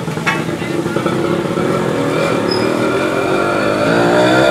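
A motor vehicle engine passing close by, its note rising in pitch and growing louder toward the end, over the steady sizzle of boneless chicken frying in oil on a flat iron tawa. One sharp metal knock sounds just after the start.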